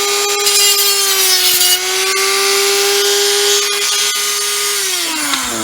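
Dremel rotary tool running at high speed, grinding plastic with a steady whine and a gritty hiss. Near the end it is switched off and the whine falls in pitch as it spins down.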